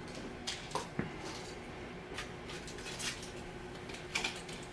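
A few scattered light clinks and knocks of dishes and utensils being handled, over a faint steady hum.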